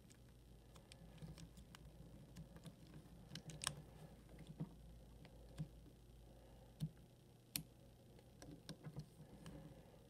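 Faint, scattered clicks and ticks from the combination wheels of a Schwinn four-wheel comb-type bike lock being turned by hand under tension while it is being decoded, with a few sharper clicks around the middle.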